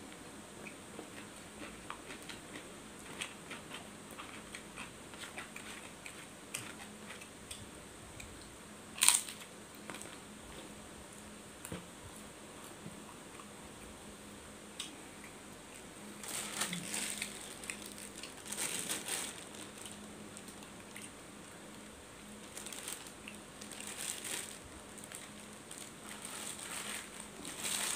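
Eating with the fingers from a paper food wrapper: quiet chewing and small mouth and finger clicks, with a sharp click about nine seconds in, and bursts of paper crinkling as the hand works the rice on the wrapping, twice in the second half.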